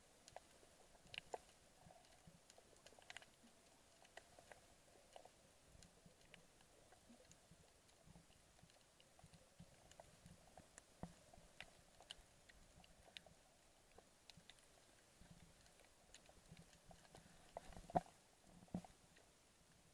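Faint underwater ambience: near silence with scattered small clicks and crackles, the loudest two sharp clicks near the end.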